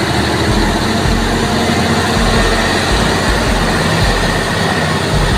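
Engine of an old, heavily loaded log truck running hard and steadily as it strains to get out of deep mud.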